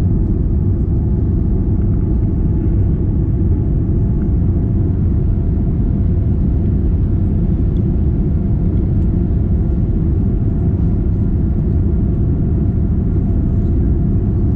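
Steady low rumble of a Boeing 787 Dreamliner's GE GEnx engines and airflow heard inside the cabin, with faint steady hum tones above it.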